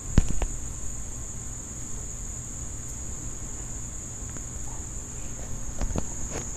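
Steady, high-pitched chirring of an insect chorus. A sharp knock comes just after the start with a smaller one soon after, and a few more knocks sound near the end.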